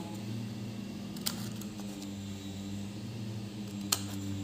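Scissors snipping paper: two short sharp clicks, one about a second in and one near the end, over a steady low hum.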